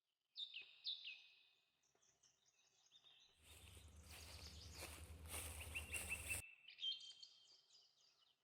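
Faint birds chirping, in short falling calls about half a second in, again near one second, and again about seven seconds in. A noisy rush with a low rumble runs through the middle for about three seconds.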